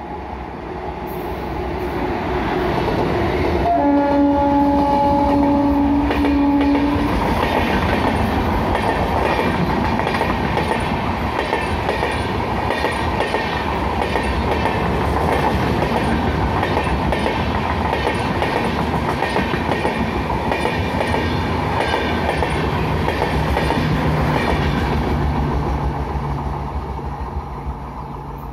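An Indian Railways express train hauled by an electric locomotive passes at speed without stopping. About four seconds in, the locomotive sounds its horn for roughly three seconds. Then the coaches run by with a steady rhythmic clickety-clack of wheels over the rail joints, fading near the end as the train recedes.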